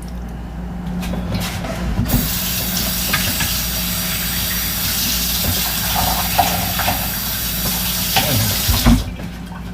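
Water running from a kitchen tap, turned on about two seconds in and shut off near the end.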